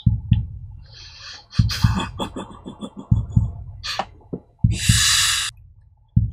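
Close-up mouth and breath noises made right into the microphone: irregular low pops and thumps with crackly clicks, then a long loud hiss about five seconds in.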